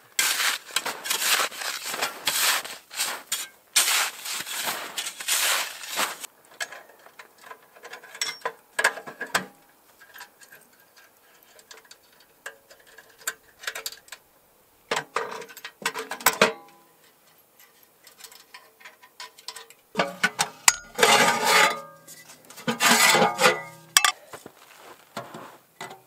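Handling noise from pitching a poncho shelter on snow: snow scraped and packed by hand and fabric and gear rustled, in irregular bursts. The handling is densest during the first six seconds, with two louder bursts near the end.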